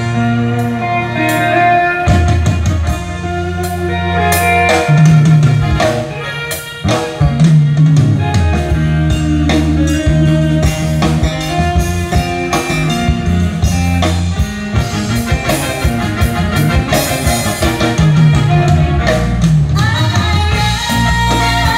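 Loud pop band music with a drum-kit beat, guitar and a stepping bass line, an instrumental passage of a song on a stage sound system.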